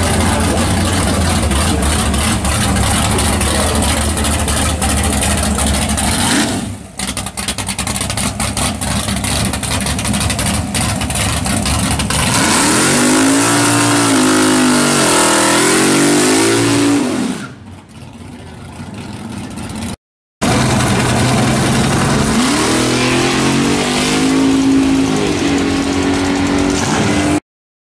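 Pontiac GTO drag car's V8 running loud, then revving up and down in several swelling sweeps on the starting line and pulling hard down the strip. The sound breaks off twice in abrupt edits.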